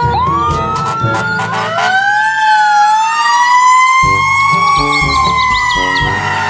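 Fire engine siren wailing, rising and falling in pitch, with two siren tones overlapping. Background music with a steady beat plays under it.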